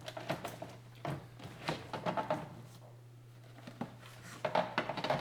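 Plastic interior door trim panel of a Honda Civic rear door being fitted, giving irregular light clicks and knocks in small clusters as it is pushed down into place against the door.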